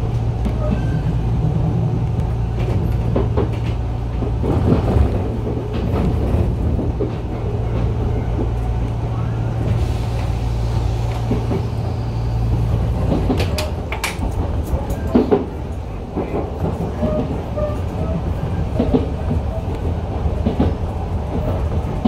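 Enshu Railway 2000 series electric train running, heard from inside the car: a steady low running hum that stops about two-thirds of the way through, with a few sharp clicks around the middle.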